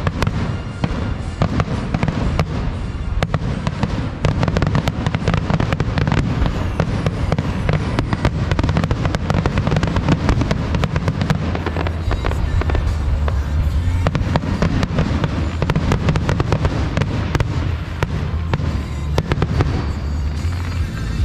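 Aerial fireworks bursting in a rapid, dense barrage of bangs and crackles, with music playing underneath.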